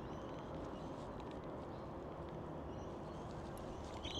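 Quiet background on still water: a low steady hiss with faint scattered ticks, and a short high chirp about four seconds in.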